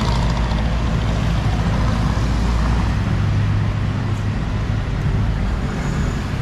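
Road traffic: a steady low engine rumble from vehicles on the street, swelling a little past the middle.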